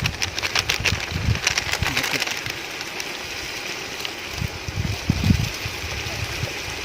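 Masala frying in a pan with a steady sizzle while a spoon stirs and scrapes it, giving a few dull knocks against the pan.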